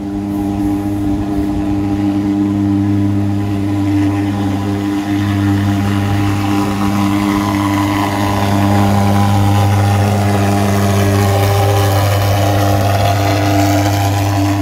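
Disinfection fogging machine on a quad bike running with a loud, steady droning hum as it blows out thick fog. The hum shifts slightly about four seconds in and again near eleven seconds.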